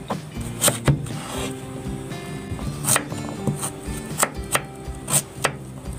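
Kitchen knife cutting raw taro into cubes, the blade knocking on a wooden cutting board in sharp, irregular strokes about every half second, over soft background music.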